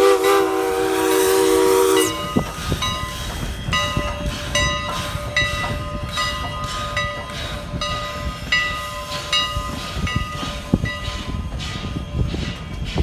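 Steam locomotive whistle sounding a held, hissing chord that cuts off about two seconds in. The locomotive bell then rings steadily, about one stroke every three-quarters of a second, with wind rumbling on the microphone.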